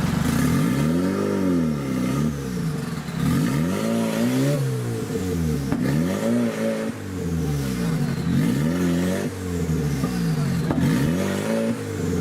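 Off-road 4x4's engine revving up and down again and again, rising and falling in pitch every second and a half or two.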